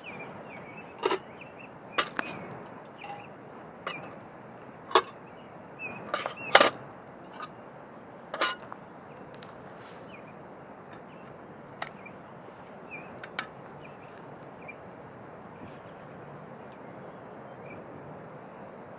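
Wood fire crackling in a small folding Firebox twig stove: sharp pops every second or two over a steady low hiss, coming thicker early and thinning out later.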